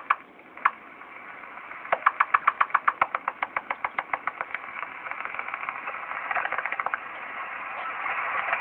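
A 2-meter amateur radio receiver tuned to 144.4 MHz is putting out rapid chirps of interference, about eight a second, over hiss. The chirps pause for about two seconds near the start, then return and blur into rising static toward the end. The operator suspects that testing in the building is causing the interference.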